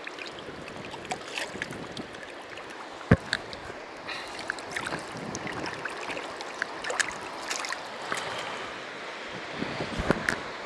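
Shallow river water running and splashing over pebbles around a wader's feet, with scattered clicks and knocks of stones underfoot and one sharp thump about three seconds in.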